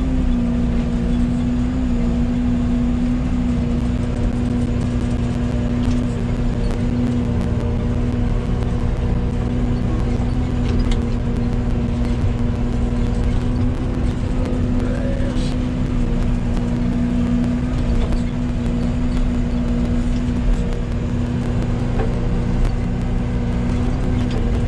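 Yanmar ViO80 compact excavator's diesel engine running steadily under working load, a constant hum with an unchanging pitch.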